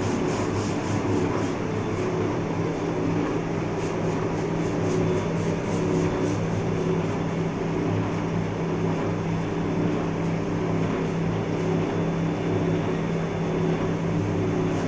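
Large Cincinnati Milacron lathe running, a steady mechanical hum.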